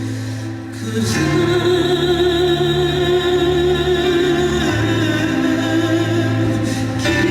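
Music with a singing voice: long held, wavering notes over sustained low chords. The music swells louder about a second in.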